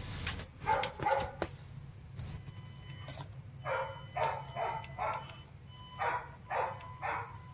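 A dog barking in a quick series, four barks a little past halfway through and three more near the end, over the steady low hum and thin whine of an electric RC crawler truck's motor and drivetrain.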